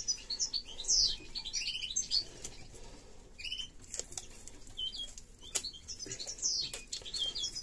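Caged finches chirping in a bird room: many short, high chirps in quick succession throughout, with scattered sharp clicks and flutters.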